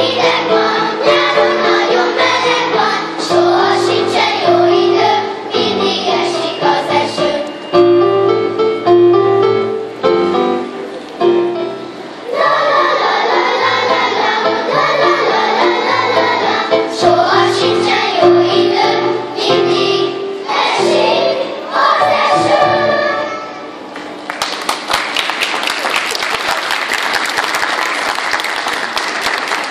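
Children's choir singing a song with instrumental accompaniment. The song ends about 24 seconds in and applause follows.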